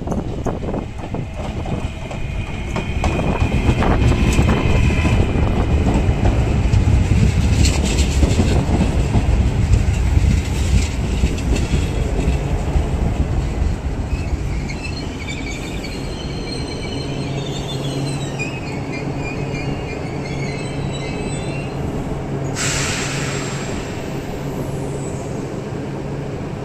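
Trenitalia Blues hybrid regional trains at a station platform: heavy wheel rumble and clicking over rail joints as a train passes close, with brief wheel squeal. Later comes a high whine that falls in pitch over a steady low hum as a train moves slowly, with a short hiss near the end.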